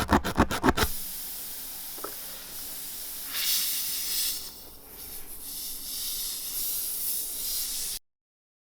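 Air hissing out of a tyre's puncture hole once the reaming rasp is pulled out, after a quick run of scraping clicks in the first second as the rasp comes free. The hiss grows louder twice and stops abruptly near the end.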